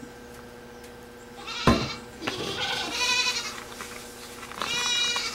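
Goats bleating twice, each a high, wavering call lasting about a second, with a sharp knock about a second and a half in.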